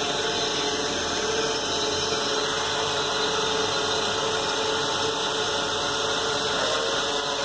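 Blade Chroma quadcopter hovering low, its four electric motors and propellers giving a steady hum made of several held tones.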